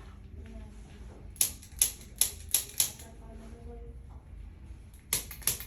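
Chiropractic activator, a spring-loaded adjusting instrument, firing sharp single clicks: a quick run of five about a second and a half in, then three more near the end.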